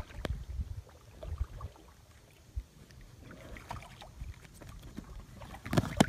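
Inflatable kayak on open water: low wind rumble on the microphone with scattered light knocks against the hull. Near the end come a few louder thuds as the dog pushes off the bow to jump.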